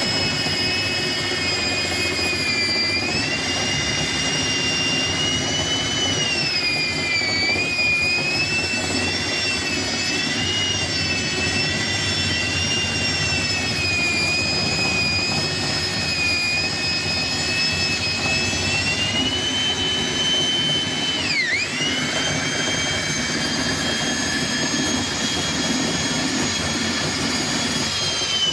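Electric drill spinning a nylon dryer-vent brush on flexible rods up inside the vent duct: a steady motor whine whose pitch wavers as the brush meets resistance. About three quarters of the way through, the speed drops sharply and then picks back up.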